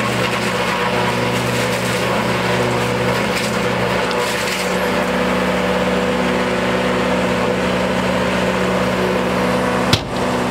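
Tractor-PTO-driven Posch post peeler running steadily under the tractor's engine hum, its cutter head shredding bark off eucalyptus logs pushed through on a second pass at maximum peeling. A sharp knock near the end.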